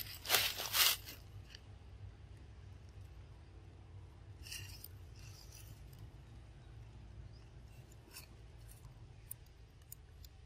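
Dry leaf litter crunching and rustling in a few loud bursts in the first second, then only faint scattered rustles and clicks.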